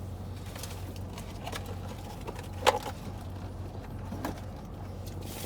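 Steady low hum of a car engine idling, with three short sharp clicks over it; the loudest click comes a little before the midpoint.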